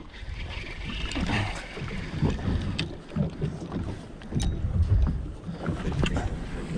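Wind buffeting the microphone and water sloshing against a boat's hull, an uneven low rumble, with a few light clicks.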